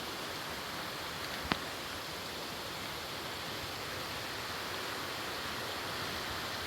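Steady rushing of a creek, with a single sharp click about a second and a half in.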